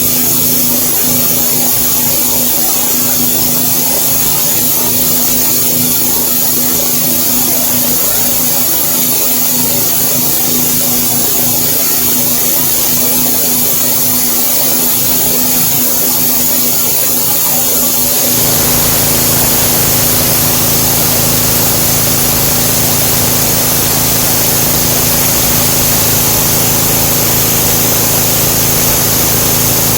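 Pressure washer running steadily with a constant hum and spray hiss while the sandblasting attachment is in use. About two-thirds of the way through the sound suddenly becomes fuller and a little louder, then holds steady.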